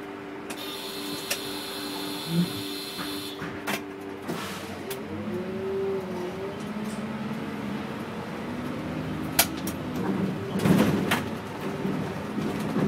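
City bus engine idling at a stop, with a high-pitched sound lasting about three seconds near the start. About four seconds in the bus pulls away, its engine note rising and shifting as it accelerates. A louder rattling burst comes near the end.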